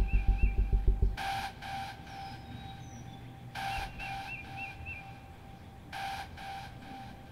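A music beat cuts off about a second in. After it, an electronic telephone rings in double rings, about one pair every two seconds, with a few faint bird chirps.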